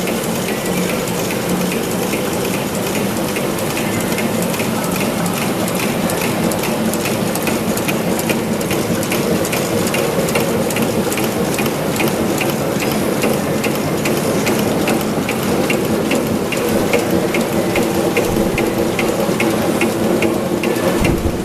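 Thread rolling machine for M6 bolts running steadily: an even clicking about two to three times a second over a constant mechanical din.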